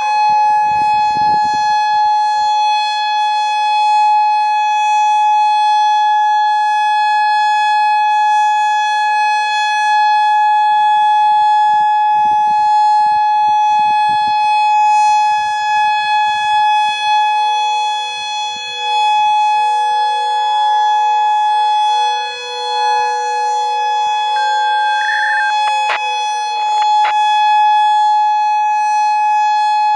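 Federal Signal Modulator 6024 outdoor warning siren sounding a loud, steady single-pitch alert tone rich in overtones, its volume dipping slightly now and then.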